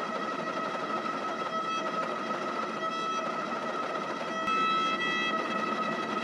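Hydraulic forging press running with a steady whine and hum from its pump while hot steel is squeezed between flatting dies. About four and a half seconds in there is a sharp click, and the whine grows louder and shifts in pitch for about a second.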